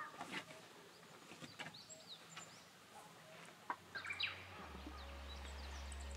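Birds chirping outdoors: scattered short, quick calls over a faint background hush. A little over halfway through, a low steady musical drone fades in under them.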